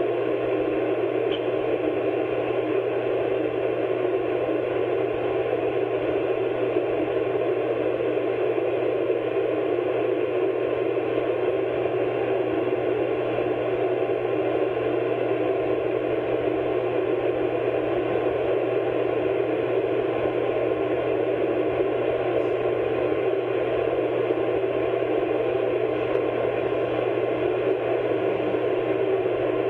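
Steady hiss with a low hum underneath, unchanging throughout: the background noise of an old, narrow-band recording, with no other sound.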